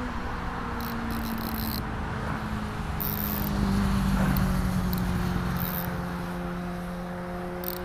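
A motor engine running with a steady hum over a low rumble. It grows a little louder for a second or two around the middle, its pitch shifting slowly.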